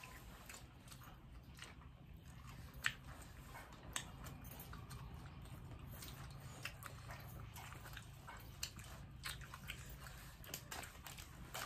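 Several people chewing and crunching singju salad and lettuce leaves: a scatter of small crisp crunches and clicks over a faint low hum.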